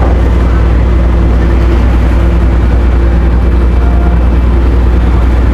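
Ferry's engines running, a loud steady low hum that does not change.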